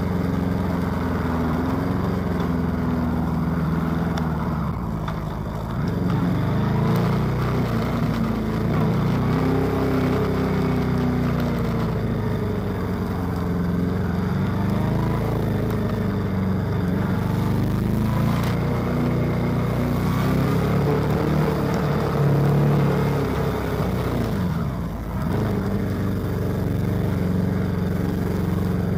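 Honda CB400 motorcycle engine running at low speed, its pitch rising and falling repeatedly as the throttle is opened and closed.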